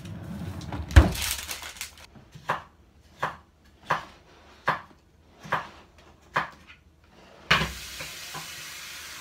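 A heavy thump as the refrigerator's freezer drawer is shut, then a cat with its head in a plastic storage box makes a run of sharp crunching sounds about every three-quarters of a second, as if chewing something it has sneaked. A steady hiss starts near the end.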